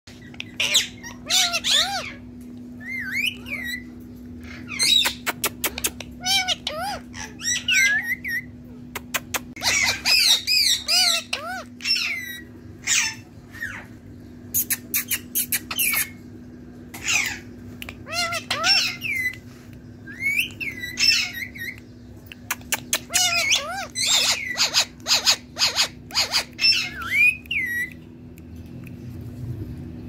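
Indian ringneck parakeet vocalizing in repeated bursts of short squawks and chatter with quick rising and falling pitch glides, mixed with quick runs of sharp clicks.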